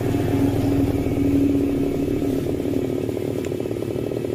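Two-stroke chainsaw engine running steadily while it cuts into a tree trunk.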